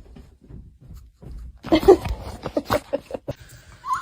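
A dog vocalizing in a quick run of short sounds, about five a second, starting just under two seconds in and lasting about a second and a half.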